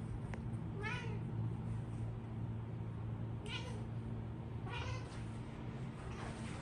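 Domestic cat meowing: three short meows, about a second in, around three and a half seconds and near five seconds, and a fainter one near the end, over a steady low hum.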